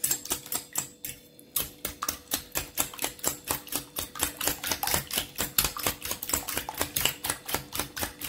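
Eggs being beaten by hand in a stainless steel bowl, the utensil clicking rapidly against the metal sides, about six clicks a second. A few clicks at first, then steady beating from about a second and a half in.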